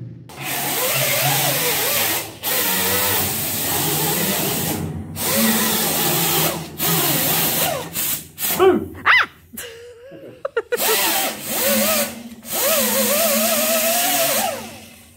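Hand-held power tool running in a series of bursts, about nine, with short stops between them and its speed revving up and down.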